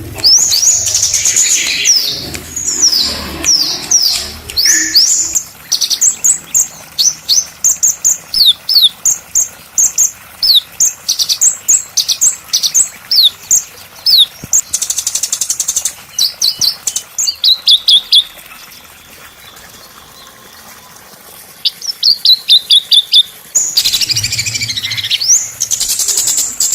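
A small songbird singing fast series of sharp, high chirps, each note sweeping down in pitch, with a short pause about two-thirds of the way through. It is a recorded 'masteran' song of a small bird, used as a tutor and prompt song for magpie-robins.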